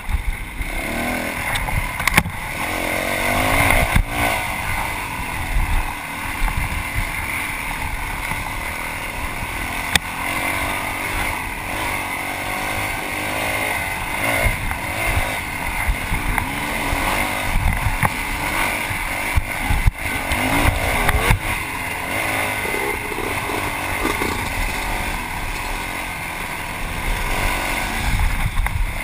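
Yamaha WR450F single-cylinder four-stroke dirt bike engine revving up and down as it is ridden hard off-road, with scattered sharp knocks from rough terrain.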